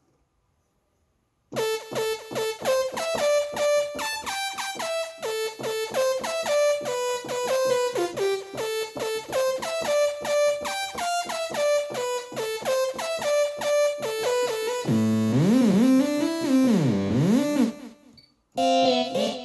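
Yamaha MODX6 synthesizer playing a dance preset: after a second and a half of silence, a fast run of short pitched synth notes. Near the end a low note swoops down and back up in pitch, then stops, and another sound starts briefly.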